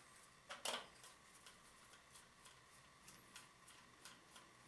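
Near silence, with two faint clicks about half a second in and a few softer ticks after: a screwdriver turning wood screws out of a wooden slat on a weaving template.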